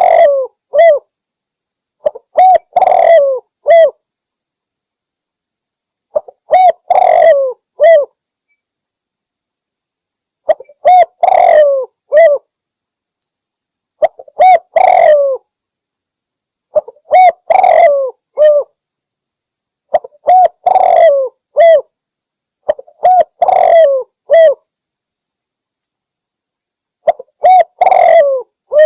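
Spotted dove (Javanese derkuku) cooing loudly in repeated phrases of a few clear notes each, a new phrase every three to four seconds with silent gaps between.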